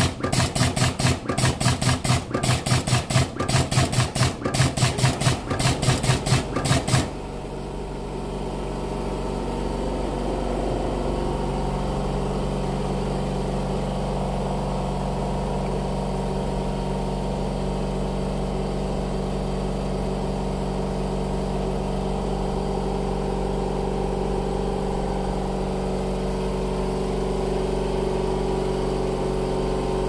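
Velcro punching and cutting machine working: its pneumatic punch and cutter strike in a fast run of sharp clacks, which stop about seven seconds in. The machine then keeps up a steady hum.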